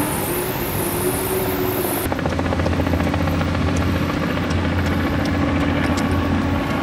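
A steady low mechanical drone with a fast beating, starting at a cut about two seconds in. Before it there is rougher outdoor noise.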